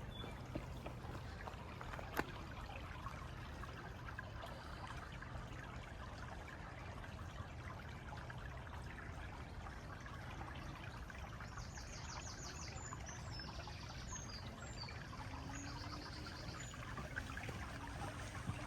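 Steady flowing water, with a bird calling in a run of short high notes about twelve seconds in.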